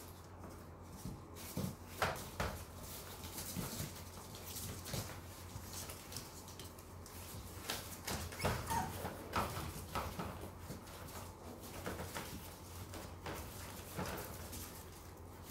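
Two small puppies, a Yorkshire terrier among them, playing on a hard floor: scattered scuffles and soft knocks, with a brief puppy whine about halfway through.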